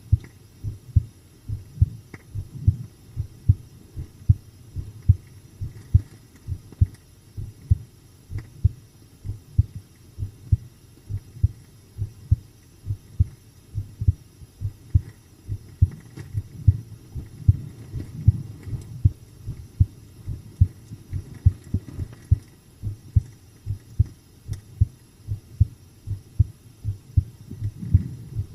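A person's heartbeat recorded close up: low double thumps repeating in a steady, calm rhythm.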